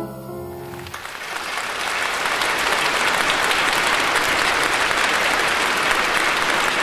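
Audience applauding at the end of a song. The clapping builds in about a second in as the last held chord of the music dies away, then keeps up steadily.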